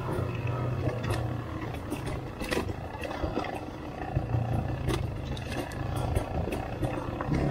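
300cc two-stroke enduro motorcycle engine running on a trail, its note rising and falling with the throttle. Frequent sharp knocks and clatters from the ride are scattered through it.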